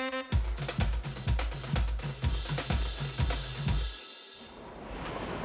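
Background music: a drum-kit beat with a kick drum about twice a second and snare and cymbal hits, which stops about four seconds in. Near the end it gives way to the even rush of whitewater.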